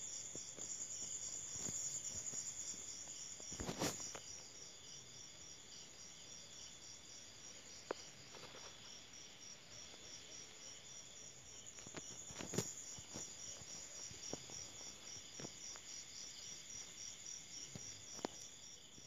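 Crickets and other night insects chorusing: a steady, evenly pulsing high trill. A few sharp clicks break in, the loudest about 4 seconds in and about 12 seconds in.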